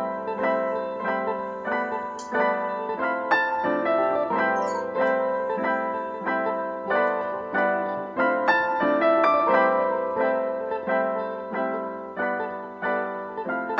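Background piano music: a gentle tune of evenly paced notes.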